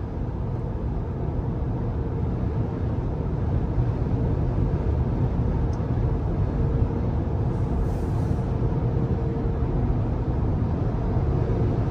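Cabin noise inside a Rivian R1T electric pickup at highway speed: a steady low rumble of tyres on the road and wind, with a faint steady whine.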